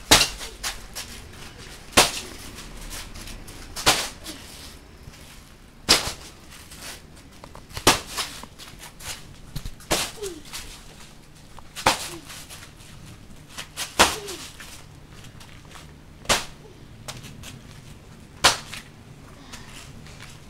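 Boxing gloves punching a hanging bag: about ten sharp slaps, roughly one every two seconds, with fainter taps between.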